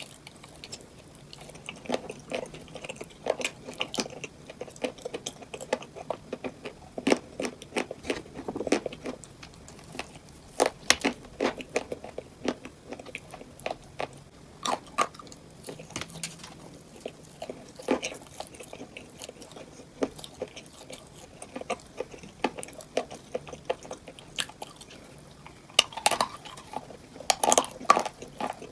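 Close-up chewing and biting of crunchy cupcakes, with irregular sharp crunches and a denser run of loud crunches near the end.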